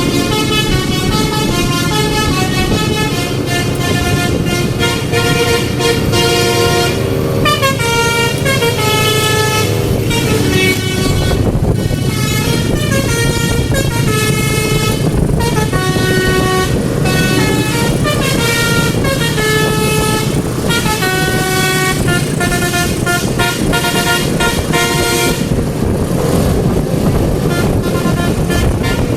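Indonesian 'telolet' multi-tone horn playing a quick melody of short stepping notes, over a steady low rumble.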